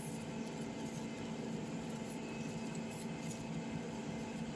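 Faint scratchy rubbing of a tissue wiping excess glue from the edges of a freshly glued phone screen, over a steady low hum.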